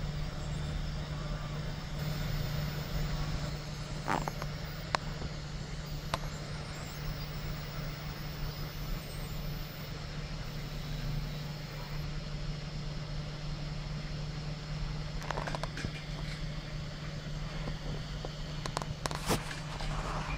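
Home-built FDM 3D printer running a print: a steady hum from its cooling blower fan and motors, with a few scattered faint clicks.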